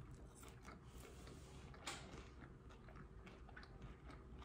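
Faint chewing of a mouthful of french fries, with small soft clicks from the mouth and one slightly louder click about two seconds in.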